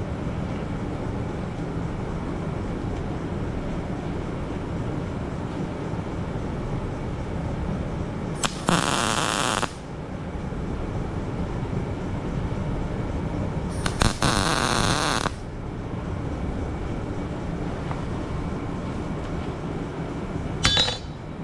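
Wire-feed welder striking two short tack welds on thin steel plate, about 8 and 14 seconds in. Each arc crackles and sizzles for about a second and a half over a steady low shop rumble.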